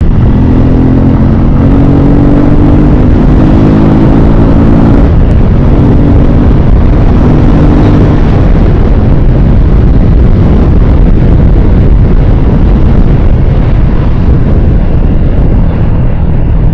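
Suzuki Gixxer 155's single-cylinder engine running at road speed under heavy wind and road noise on the microphone. The engine note drops out briefly about five seconds in, comes back, then is mostly buried in wind noise from about eight seconds on.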